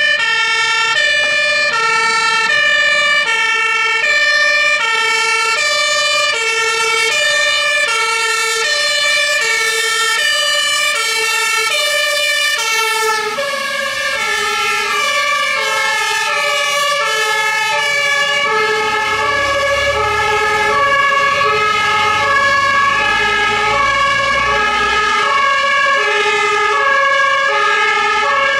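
Two-tone Martinshorn sirens of German fire and rescue vehicles, alternating between a low and a high note about every three-quarters of a second over a steady high tone. Around halfway a second horn joins out of step with the first, and a vehicle engine rumbles past in the second half.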